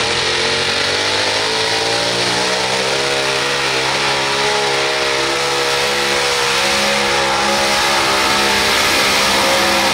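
Modified pulling tractor's twin supercharged engines running at full throttle under heavy load as it pulls the sled, a loud, steady engine note held throughout.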